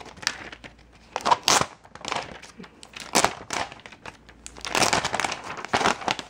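Clear plastic wrapping crinkling and rustling in irregular bursts as it is peeled off and pulled away from a tablet.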